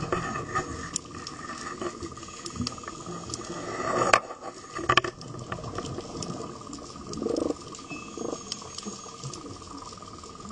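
Underwater recording: bubbling and gurgling water with scattered sharp clicks over a steady high whine, the bubbling swelling to two loud bursts about four and five seconds in.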